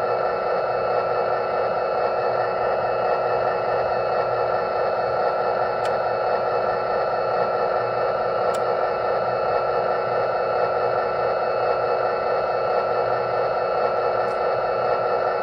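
Lionel model diesel locomotive's onboard sound system playing a steady diesel engine idle through its small speaker, with two faint clicks in the middle.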